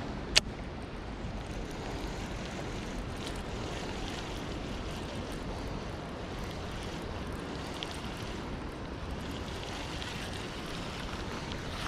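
Strong storm wind buffeting the microphone, a steady rushing noise, with one sharp click about half a second in.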